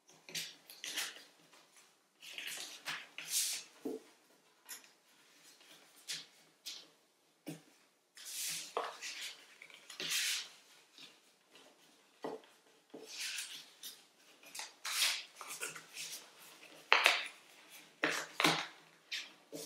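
Paper being folded by hand into an origami piece on a tabletop: irregular crinkling and rustling with sharp creasing sounds and light taps, starting suddenly and going on in uneven bursts.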